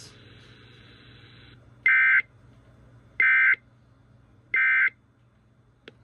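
Three short, buzzy Emergency Alert System end-of-message (SAME "NNNN") data bursts, each about a third of a second long and about a second apart, sent over the radio to close the severe thunderstorm warning. Faint radio hiss comes before them.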